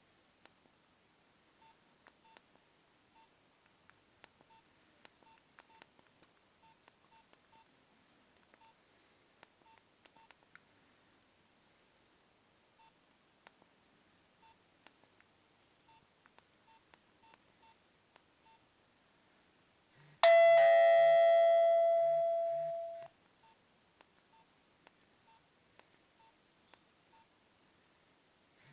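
Nokia 2760 mobile phone: faint button clicks and soft, short key beeps, then about twenty seconds in a single bright bell-like ringtone chime that sounds for about three seconds and fades away.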